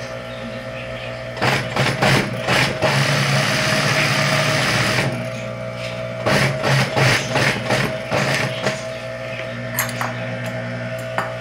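Industrial flatbed sewing machine stitching a fabric bag handle in two runs, starting about a second and a half in and again around six seconds in, over the steady hum of its motor. A few single clicks come near the end.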